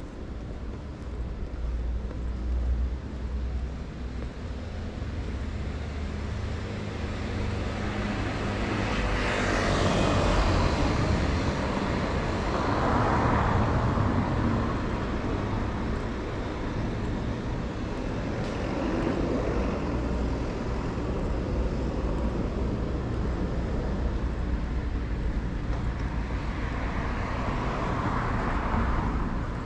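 Street traffic: several vehicles pass one after another, each swelling and fading away, the loudest about a third of the way in. A steady low rumble runs underneath.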